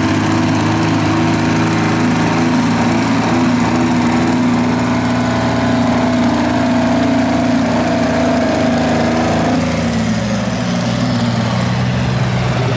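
Detroit Diesel 12V-92 two-stroke V12 diesel of a pulling tractor running hard under load, black smoke visible, with a steady droning pitch. About ten seconds in it eases off a little.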